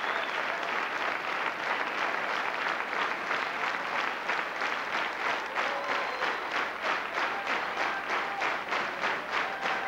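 Large audience applauding, the clapping falling into a steady unison rhythm of about three to four claps a second after a few seconds.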